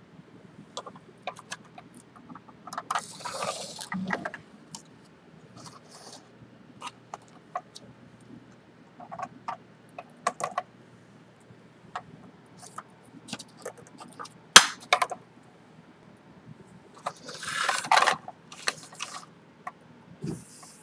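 Handling noise from fitting a steel pushrod wire into an elevon linkage on a model aircraft wing: scattered light clicks and taps, two longer scraping rubs about 3 and 18 seconds in, and one sharp click a little past the middle.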